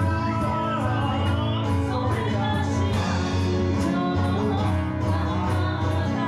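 Okinawan folk song played live on a sanshin and an acoustic guitar, with singing.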